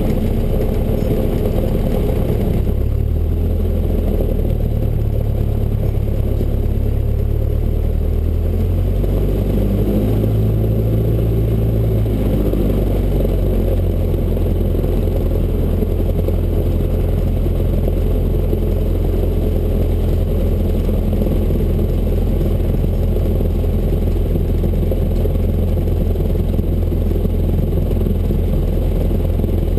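Cessna 172's piston engine and propeller running at low taxi power, a loud steady low drone. Its pitch shifts up and down a little in the first dozen seconds, then holds steady.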